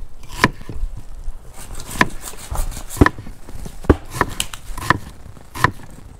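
Kitchen knife slicing a peeled onion on a wooden cutting board: about seven sharp knocks of the blade on the board, unevenly spaced.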